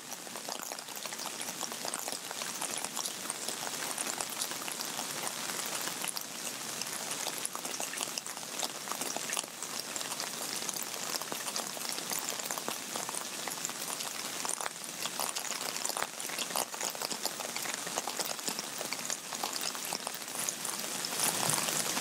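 Rain falling and dripping onto wet pavement: a steady wash of noise dotted with many small drip ticks, growing slightly louder.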